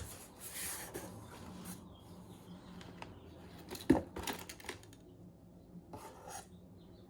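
Rustling and scraping of a cardboard box and its packaging being rummaged through, in uneven spells, with one sharp knock about four seconds in.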